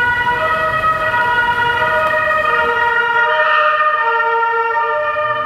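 Several emergency vehicle sirens sounding together, each switching back and forth between two steady pitches.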